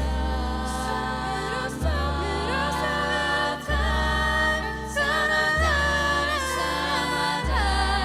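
Young vocal ensemble singing in harmony, with no recognisable lyrics, over a backing track. A low bass note underneath changes about every two seconds.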